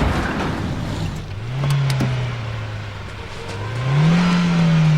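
A motor vehicle engine revving twice, rising in pitch about a second and a half in and again near the end, holding the higher note after each rise.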